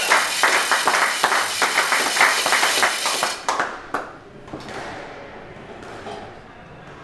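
Spectators applauding for about three seconds, a dense patter of claps. The applause dies away, and a few squash ball strikes follow, ringing in the walled court.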